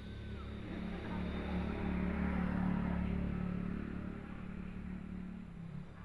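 A motor vehicle passing: a low engine hum that swells to its loudest about halfway through, then fades.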